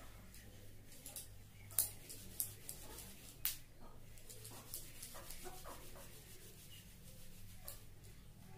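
Thin cotton gamcha towel rubbing and wringing wet long hair, with a few sharp smacks of cloth and hair about two, two and a half and three and a half seconds in, and a quicker patter of small rubs a little later. A low steady hum runs underneath.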